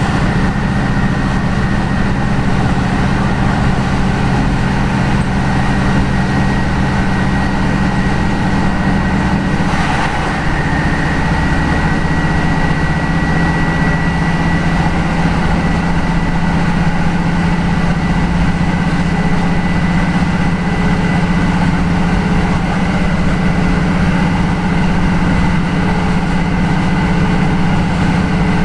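Class 156 Sprinter diesel multiple unit under way, heard from inside the carriage: the steady drone of its underfloor Cummins diesel engine with a thin high whine. About ten seconds in there is a short hiss and the engine note drops slightly.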